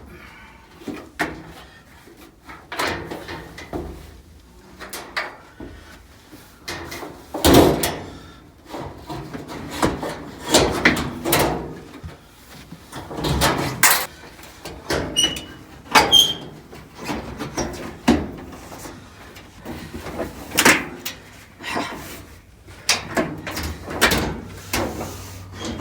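Repeated knocks, clunks and rattles of electric clothes dryer parts being handled and fitted back together, irregularly spaced, with louder clunks around a third of the way in and again in the middle.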